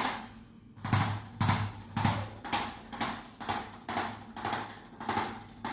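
Rhythmic thumps on a chiropractic treatment table with a patient lying face down, about ten of them, evenly spaced at roughly two a second, as the chiropractor works on him.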